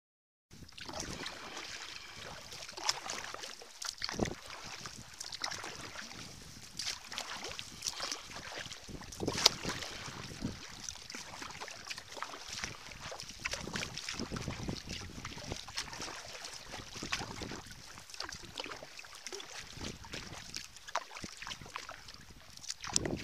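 Sea kayak being paddled through calm water: the paddle blades dipping and splashing in irregular strokes, with water dripping and the hull swishing along.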